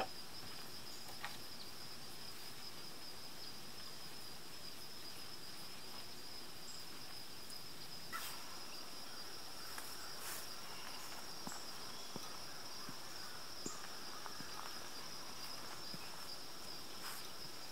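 Insects trilling in a steady, high-pitched chorus, with a few faint knocks and rustles.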